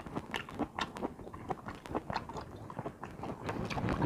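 A person chewing and biting king crab leg meat, a steady run of small mouth clicks.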